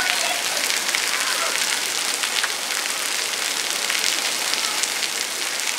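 Steady hiss of falling water, dense with small drop-like ticks, in the manner of rain on surfaces.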